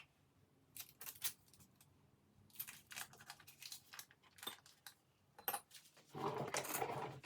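Scattered light clinks and rattles of metal kitchen utensils, such as measuring spoons, against bowls, with a denser scraping rustle lasting about a second near the end.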